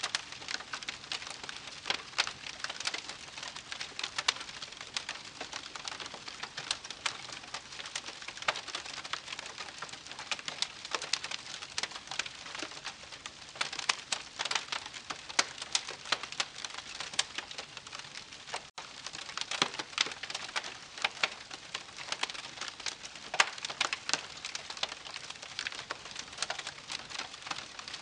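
Wood campfire crackling: a steady hiss of burning wood with dense, irregular sharp pops and snaps. The sound drops out for an instant about two-thirds of the way through.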